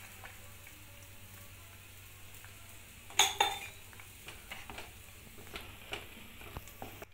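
Faint simmering of pongal in a clay pot as milk goes in and a ladle stirs it. There is one sharp clink of the ladle against the pot about three seconds in, then a few softer knocks.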